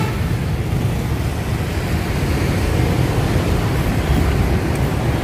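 Steady low rumble of passing vehicles, with no distinct rhythm or tone.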